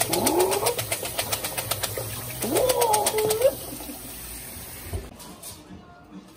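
Black beans being rinsed in a plastic colander under a running kitchen tap, with a fast, regular clicking. Two rising vocal calls cut over it, one at the start and one about two and a half seconds in. The rinsing stops about three and a half seconds in, and a single thump follows.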